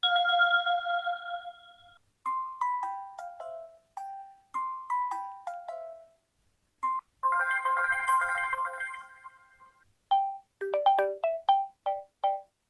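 UMX mobile phone ringtones and notification tones played one after another, each a few seconds long with short gaps between them. First a held electronic tone, then two quick descending runs of bell-like notes, a brief blip, a held chord, and near the end a fast run of short notes.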